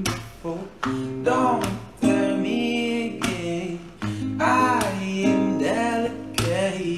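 A young man sings a melismatic vocal line with wavering, bending pitch to his own strummed acoustic guitar.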